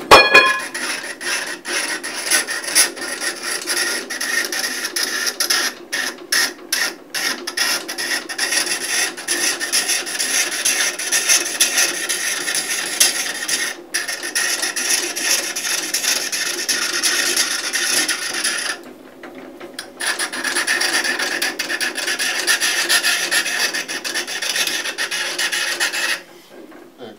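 An old drill bit set in a wooden block is held against a turning, treadle-driven sandstone grindstone, scraping into the stone to grind down its high spots and true the misshapen wheel. The scraping is steady, with a few brief breaks, a pause of about a second roughly two-thirds through, and it stops shortly before the end.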